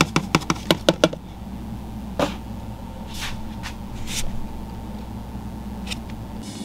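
A plastic cup of fruit flies tapped rapidly, about eight sharp taps within a second, shaking the flies out into a frog enclosure. It is followed by a single knock and a few soft brushing sounds.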